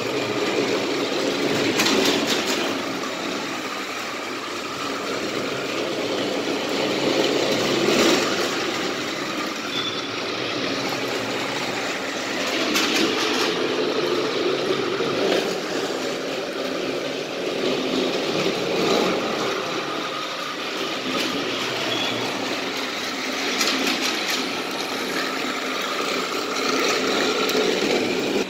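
Motorized Thomas & Friends toy trains, Kenji among them, running on plastic track: a steady whirring of small electric motors with the wheels rattling along the track, and now and then a sharper clack.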